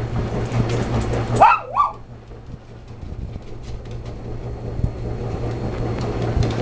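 Small dog giving two short, high play barks about a second and a half in, an invitation to play.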